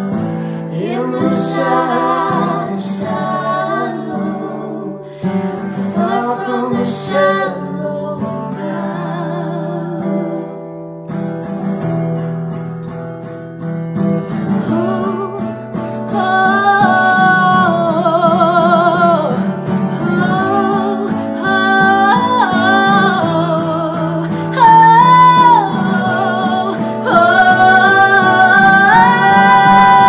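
Music: strummed guitar under female voices singing wordless lines with vibrato. It grows louder about halfway through, and long held notes build near the end.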